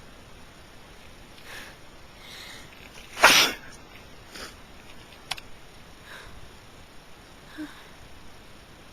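A person sneezing once, loudly, about three seconds in, during an allergy attack. Fainter breaths and sniffs come before and after the sneeze.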